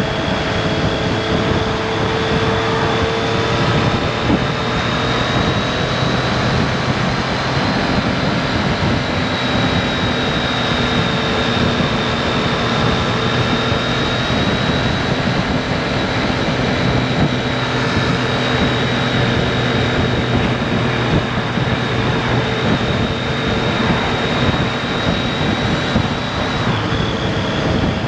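2018 Triumph Street Triple RS's 765 cc inline-three engine running at a steady cruise, heard from the rider's seat together with wind and road noise. Its pitch stays nearly level, drifting only slightly, with a thin high whine over it that dips a little near the end.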